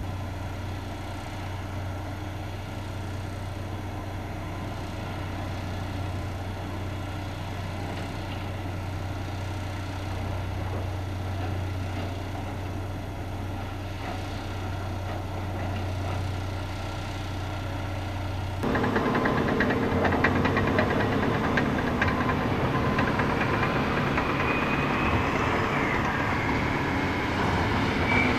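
Heavy diesel machinery on an earthworks site: first an engine idling with a steady low hum. About two-thirds of the way in, the sound cuts to a louder, closer diesel running, with a high whine that wavers near the end.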